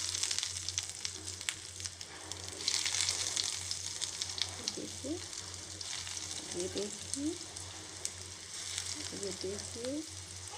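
Breadcrumb-coated bread rolls shallow-frying in hot mustard oil in a pan: a steady sizzle full of fine crackles. It swells louder about three seconds in and again near the end as more rolls go into the oil.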